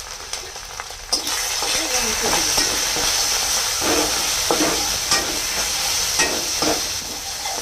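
A spice paste of ginger, dried red chilli and turmeric is frying in oil in a metal kadai, sizzling, while a metal spatula stirs it and scrapes the pan again and again. The sizzling grows louder about a second in, when the stirring starts.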